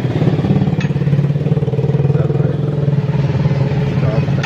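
The hay baler's diesel engine running steadily, with an even low rhythm.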